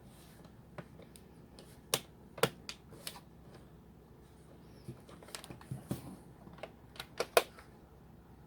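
Plastic clips on an HP laptop's screen cover and bezel clicking and snapping as they are pressed into place: a dozen or so irregular sharp clicks, the loudest about two seconds in and near the end.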